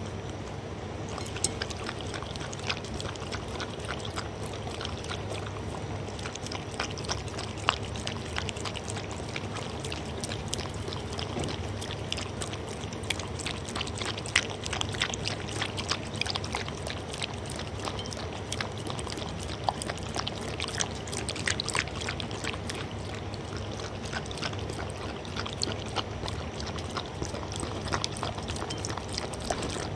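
A dog lapping up soup from a bowl close to the microphone: quick, irregular wet tongue laps and slurps, starting about a second and a half in.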